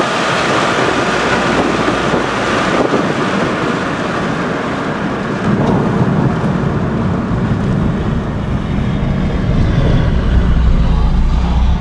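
Chrysler PT Cruiser cabin noise while slowing from high speed: a strong rush of wind and road noise that thins out after a few seconds, while a low engine and tyre drone grows louder toward the end.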